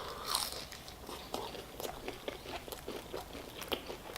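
Chewing a fried chicken burger: irregular soft crunches and wet mouth clicks, several a second.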